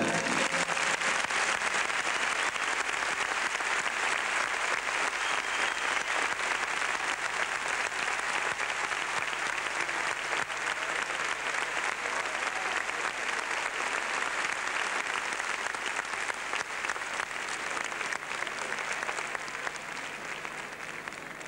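Audience applauding steadily, the clapping dying away gradually over the last few seconds.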